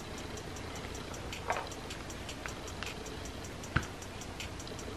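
Faint, fast, even ticking, about five or six ticks a second, with makeup packaging being handled: a light click about one and a half seconds in and a sharper knock of something set down on the table a little before four seconds.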